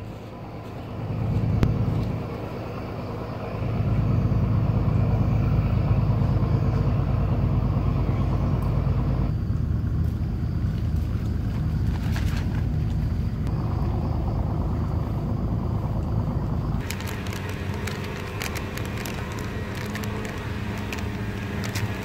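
Steady low rumble of wind buffeting the microphone, with sharp crackling clicks in the last few seconds.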